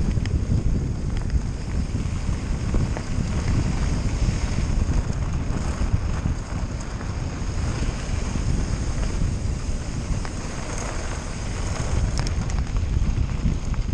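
Wind buffeting the microphone of a camera riding on a mountain bike, over a steady rumble of tyres rolling on a loose gravel trail.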